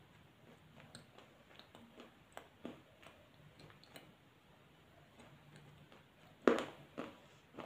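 Someone biting and chewing hard, dry clay pieces, giving many small crisp cracks with two louder crunches about six and a half and seven seconds in.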